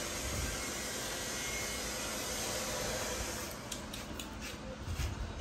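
Steady hiss that drops away about three and a half seconds in, leaving a few light clicks and taps.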